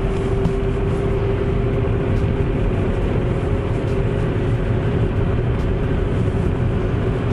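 Road noise inside a moving car: a steady low rumble of tyres and engine with a constant hum.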